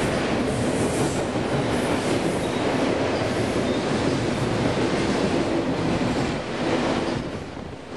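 Double-stack container freight train rolling past, its wheels rumbling and clacking over the rail joints in a steady loud din that eases briefly near the end.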